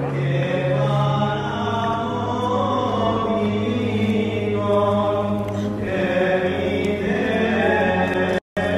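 Voices chanting a slow, held melody over a steady low drone, in the manner of Orthodox church chant. The sound cuts out for a moment near the end.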